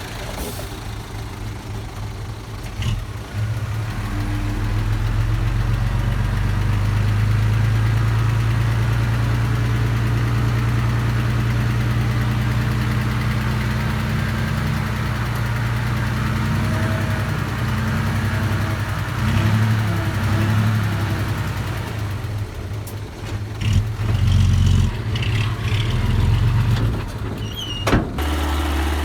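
Engine of a small earthmoving machine running steadily, getting louder about four seconds in and shifting in note several times later, with a sharp knock near the end.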